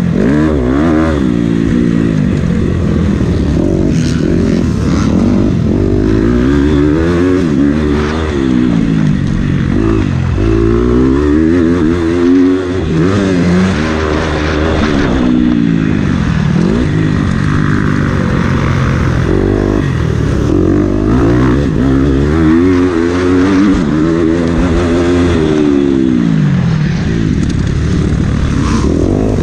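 Motocross dirt bike engine ridden hard on a dirt track, the revs climbing and falling again and again as the throttle is opened and shut through the gears.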